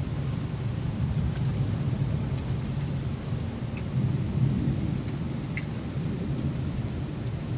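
Heavy rain falling steadily under a low rolling rumble of thunder that swells about four seconds in, with a few scattered drip ticks.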